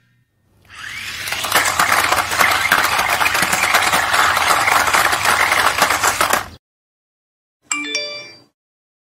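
A remote-control spinning stunt car tumbling on concrete makes a loud, dense rattling, scraping noise that fades in and cuts off after about six seconds. Near the end, a single bright bell-like ding rings briefly.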